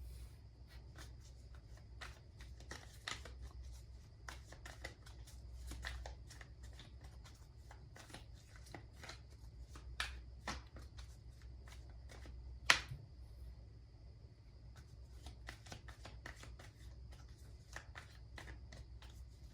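Tarot or oracle cards being shuffled by hand: a run of soft card flicks and rustles, with one sharper snap about two-thirds of the way through.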